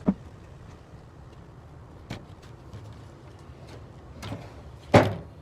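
Several short knocks of wood pieces being handled and set down, the loudest about five seconds in, over a low steady hum.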